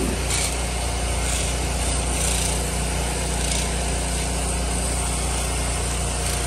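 An 8-gallon-a-minute pressure washer running steadily while its jet hisses against awning fabric. The spray pulses, which the owner puts down to a bad check valve in the machine.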